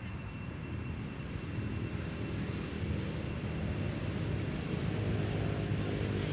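Low engine drone, steady, growing a little louder from about four seconds in.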